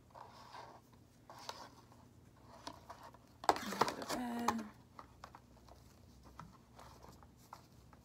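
Soft rustles and light taps of plastic catheter tubing, drainage bag and kit wrapping being handled. About three and a half seconds in, a short wordless vocal sound lasting about a second is the loudest thing.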